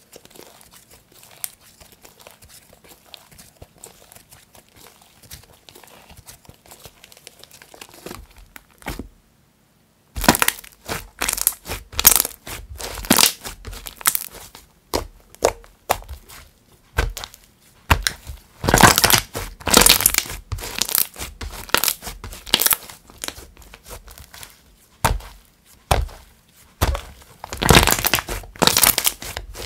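Thick clay-mixed slime being handled: soft, faint crinkling as it is stretched, then after a brief silence loud crackling, popping and squishing as it is pressed and folded between the hands and trapped air bubbles burst.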